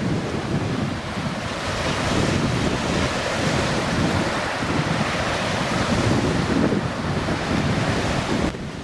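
Wind buffeting the microphone in gusts, over a steady rushing noise; it drops suddenly near the end.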